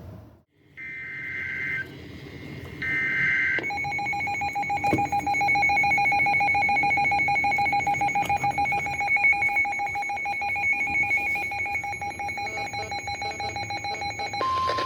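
Emergency Alert System tones announcing a Special Marine Warning. Two short warbling data bursts of the alert header come first, then a long steady two-tone attention signal that cuts off suddenly near the end.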